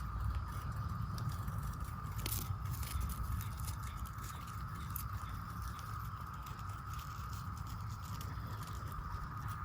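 Brood X periodical cicadas in a steady chorus, an even buzzing drone held at one pitch, over a low rumble with a faint tick or two.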